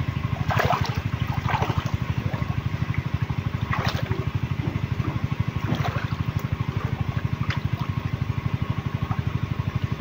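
A small engine running steadily with a rapid, even beat, with a few short splashes and sloshes of hands groping in shallow muddy water.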